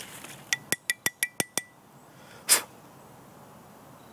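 A small dug relic bullet, hollow at the base, being tapped out to knock the soil from its hollow: about seven quick, sharp taps with a short metallic ring in a little over a second, followed by one brief burst of noise about two and a half seconds in.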